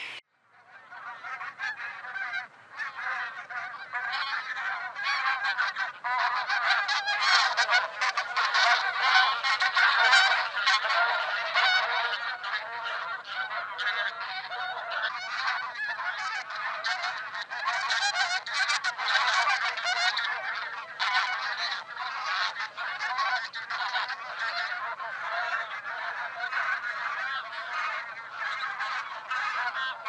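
A flock of white domestic geese honking, many calls overlapping without a break.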